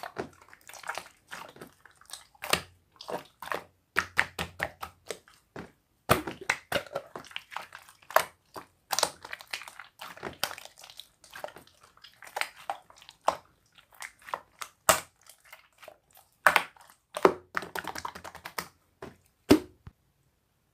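Close-up crunching and crackling of food being chewed: a dense run of irregular sharp crackles and clicks that stops shortly before the end.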